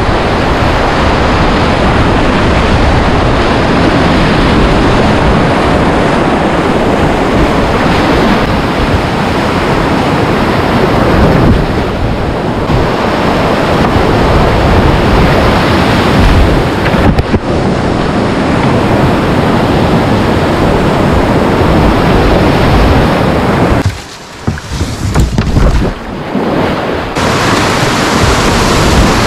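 Loud, steady rushing of whitewater rapids in a flooded river, heard from a kayak in the middle of the rapids. The noise drops sharply for a couple of seconds near the end, then comes back.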